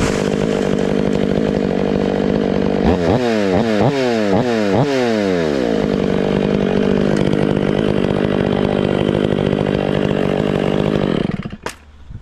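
Chainsaw running at high speed through a felling back cut. About three seconds in, its pitch jumps up and sags back five or six times in quick succession, then steadies. It cuts off about eleven seconds in, followed by a couple of sharp snaps.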